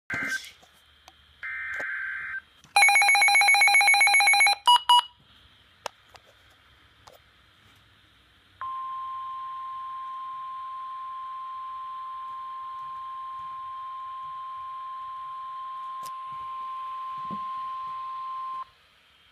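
Emergency alert tones. A few short buzzy data bursts and one loud, harsh, multi-tone burst come in the first five seconds. After a pause there is a single steady high-pitched alert tone held for about ten seconds, the warning alarm tone that comes before a broadcast flood warning.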